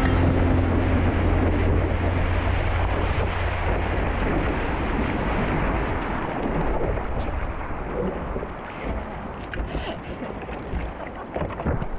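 Loud rushing surf mixed with wind buffeting the camera microphone, with a heavy low rumble. It eases off over the last few seconds.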